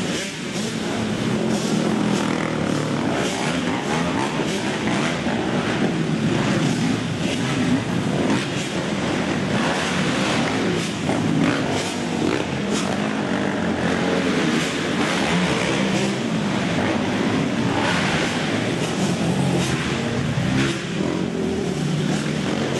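Several racing quad ATV engines revving hard and easing off, overlapping one another, in an indoor dirt arena.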